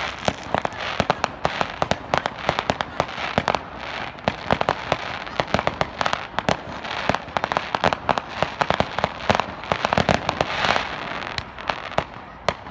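Consumer fireworks and firecrackers going off in quick succession: a dense, irregular run of sharp pops and bangs, several a second, over a steady crackle.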